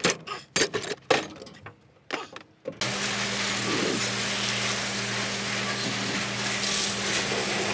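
A few scattered knocks and clicks, then from about three seconds in a pressure washer runs steadily, its water jet hissing against the fins of a removed excavator radiator with a steady low hum from the washer's pump beneath. The radiator is being washed out because the Komatsu PC200-8MO excavator runs at high oil temperature.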